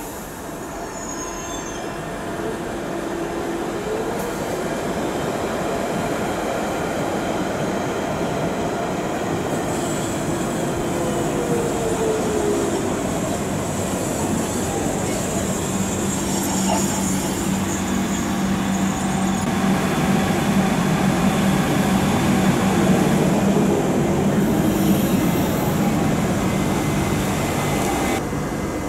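London Underground 1992 tube stock train on the Central Line approaching and running alongside the platform, getting louder over the first several seconds. Its wheels squeal on the rails over a steady electric hum that is loudest in the last few seconds, and the sound cuts off sharply near the end.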